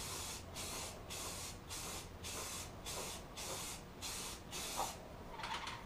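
Aerosol can of primer filler spraying in short repeated bursts, about two a second, then stopping shortly before the end.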